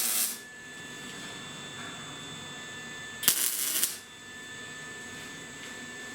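Short crackling bursts of arc welding on the steel frame, three tack welds of under a second each, the middle one the loudest. Between them a welder hums with a thin, steady high whine.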